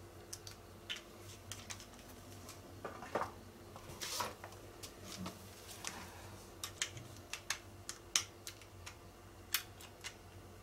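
Irregular light clicks and ticks from pet hair clippers being worked through an old dog's fur, with a slightly louder cluster about four seconds in.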